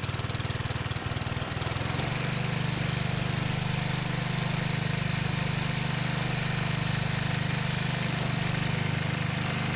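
Cub Cadet walk-behind string trimmer's small gasoline engine running steadily as it warms up, not yet at full speed. Its note picks up slightly about two seconds in and then holds steady.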